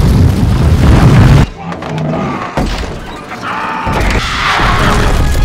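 Film battle soundtrack: a loud, deep crashing rumble that cuts off abruptly about a second and a half in, then quieter music, with crashing effects building again near the end.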